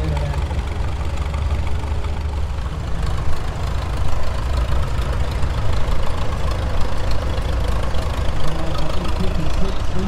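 Engines of antique Farmall tractors running as the tractors drive past one after another, a steady low engine sound that grows more uneven from about three seconds in.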